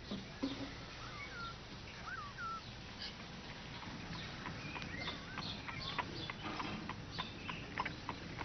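Faint bird chirps in the background, a few short calls in the first few seconds. These are followed by scattered light clicks and taps.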